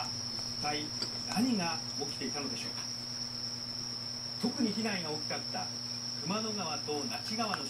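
A steady high-pitched tone, unbroken, over a low hum, with a voice speaking in short phrases in the background.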